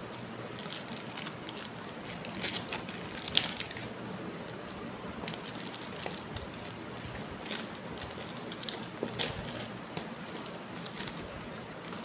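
Plastic courier packaging crinkling and rustling as it is handled and cut with scissors: scattered short crackles over a steady low hiss, with one sharper crackle about three and a half seconds in.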